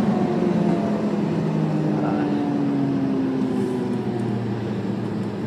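Lamborghini's engine heard from inside the cabin, its note falling slowly as the revs drop, over a steady rush of road noise.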